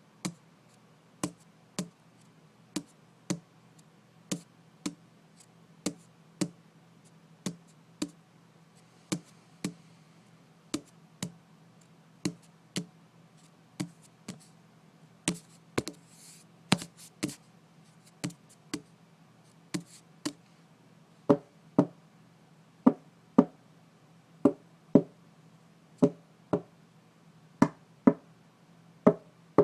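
Repeated knocking, mostly in pairs of sharp knocks about half a second apart that recur every second and a half or so, with a quicker cluster midway and louder knocks over the last third. A faint steady hum sits underneath.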